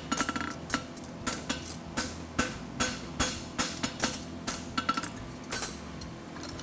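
Hand hammer striking a red-hot steel horseshoe on an anvil in a steady run of blows, about two or three a second, stopping near the end. The farrier is forging the shoe into shape.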